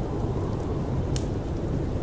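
Steady low rumble of snowstorm wind, with a single sharp crackle from a wood fire about halfway through.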